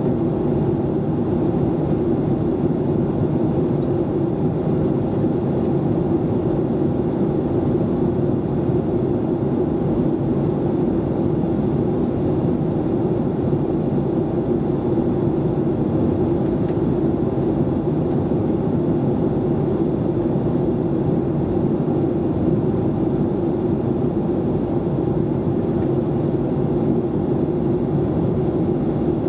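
Steady cabin noise inside a Boeing 737-800 in flight: a constant low hum of its engines and the airflow past the fuselage, unchanging throughout.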